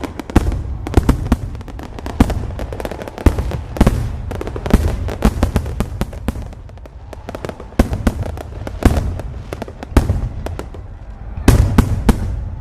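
A fireworks display: many shell bursts and crackling bangs going off in quick irregular succession, several a second, over a continuous low rumble, with a dense cluster of loud bangs near the end.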